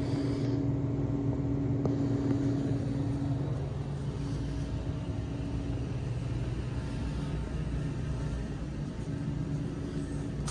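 Steady low mechanical hum with a few held tones, the strongest fading after about three and a half seconds.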